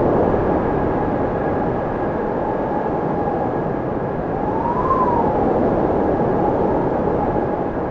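Strong gusty wind blowing over a phone's microphone in the aftermath of a hurricane. Through the wind, a faint tone rises and falls back once about five seconds in.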